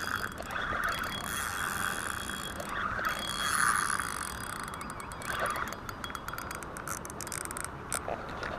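Spinning reel being cranked during a retrieve: the gears whir in spells as the handle turns, with a run of fine rapid clicking a little past the middle.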